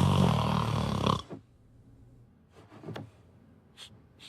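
A person snoring: one loud, rough snore about a second long, then quiet with a few faint ticks.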